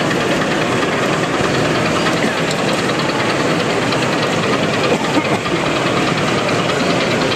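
A model BR Class 26 diesel locomotive's DCC sound decoder plays a steady diesel engine running sound through its small onboard speaker as the train moves along the track.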